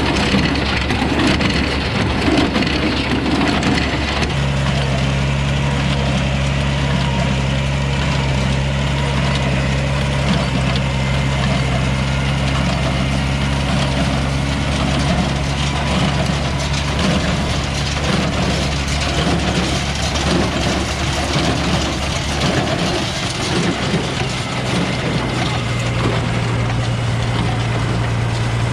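Old farm tractor engine running steadily while it works a small square hay baler, with the machinery clattering along. The engine note changes a little about four seconds in and drops slightly near the end.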